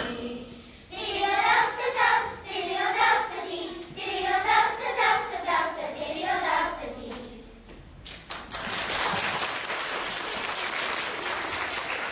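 A group of children singing together in phrases. The song ends about two-thirds of the way through and applause starts.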